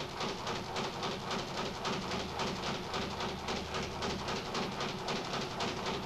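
Speed bag struck in a fast, even, drumming rattle as the leather bag rebounds off its wooden platform.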